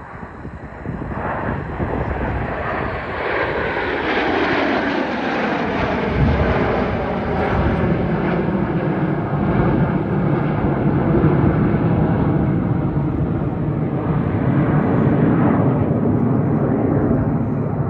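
Formation of BAE Hawk T1 jet trainers flying past with their jet engines running. The sound swells over the first few seconds, and a whine glides down in pitch as the formation passes. It then settles into a loud, steady rumble.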